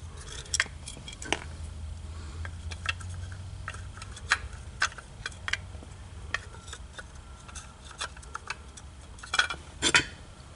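Small metal screws and parts clicking and clinking irregularly as they are handled and sorted through, with a louder cluster of clinks near the end.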